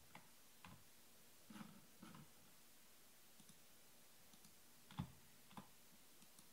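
Near silence with a handful of faint, scattered clicks and taps; the loudest comes about five seconds in.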